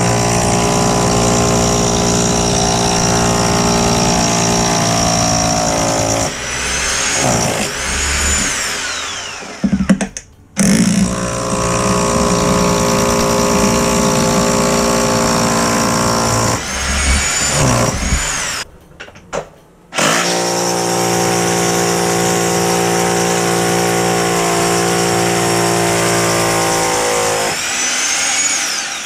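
Corded hammer drill with a masonry bit boring down through a toilet flange's screw holes into a concrete floor, in three long runs. Each run stops about six, sixteen and twenty-seven seconds in, and the motor's whine falls away as it spins down after each stop.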